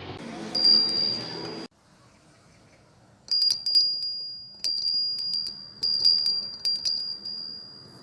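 Small mini bell rung by hand: one ding about half a second in, then after a short pause a run of about six quick dings, each ringing on with a clear, high tone.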